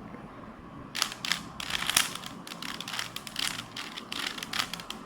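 Rubik's cube being twisted quickly by hand: a fast, irregular run of plastic clicks and rattles as the layers turn, starting about a second in.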